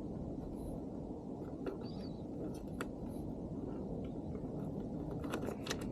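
A few faint, scattered clicks and taps from hands working small plastic and metal motorcycle parts, over a steady low background rumble.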